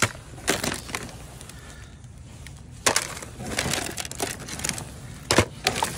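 Crinkly clear plastic bag rustling and thin plastic containers clicking and crackling as items are rummaged through by hand. There are several sharp crackles, the loudest about three seconds in and two more near the end.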